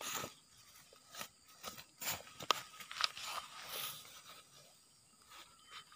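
Light handling noise: scattered faint crackles and clicks with a brief rustle, dying away over the last second or so.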